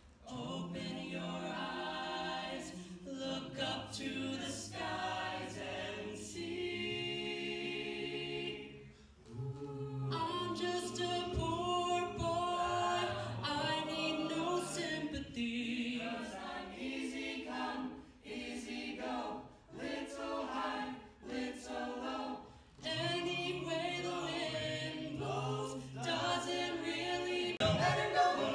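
Mixed a cappella group, men's and women's voices, singing in close harmony, in phrases of held chords with short breaks between them.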